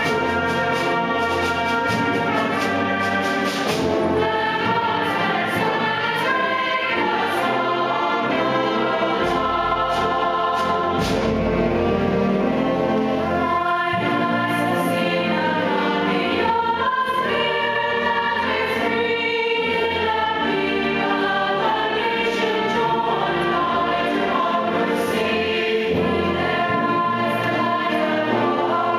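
Music: a choir singing with orchestral accompaniment that includes brass.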